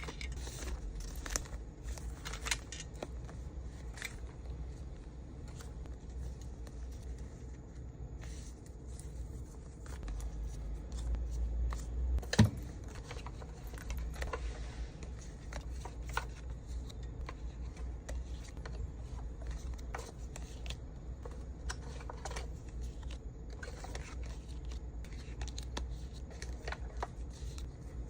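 Hands packing small accessories and packaging: scattered light clicks, taps and rustles, with one sharper knock about halfway through, over a steady low hum.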